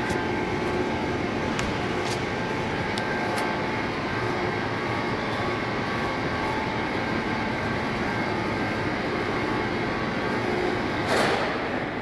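Lathe running steadily with a crankshaft turning in it, a constant mechanical rumble with faint high ticks in the first few seconds and a brief louder rush of noise near the end.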